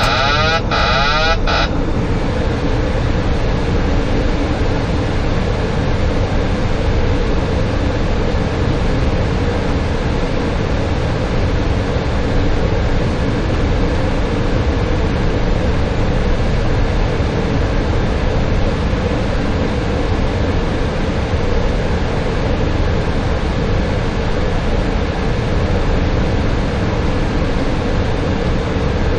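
Steady cockpit noise of a Boeing 737-800 on approach: air rushing past the flight deck and engine hum, with a low steady drone. A short warbling electronic tone sounds at the very start and stops under two seconds in.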